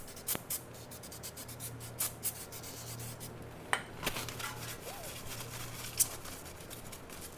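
Rubbing and scratching on the brake caliper as it is cleaned: a quick run of short scrapes, with a sharp tick a little under four seconds in and another about six seconds in.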